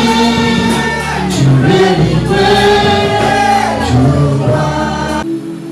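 Gospel worship music: a choir and singers over a band. Near the end the bass drops out, leaving a held chord.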